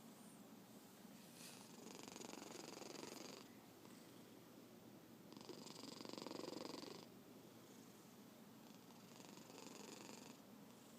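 Domestic cat snoring faintly, three noisy breaths swelling and fading about every three to four seconds.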